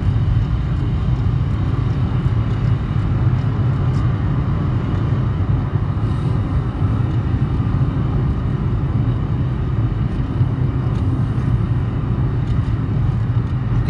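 Steady drone of road and engine noise heard inside a moving car's cabin, a low rumble that holds even throughout.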